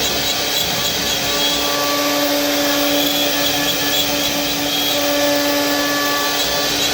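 Electric woodworking power tool running steadily: a constant motor whine over a loud rushing noise.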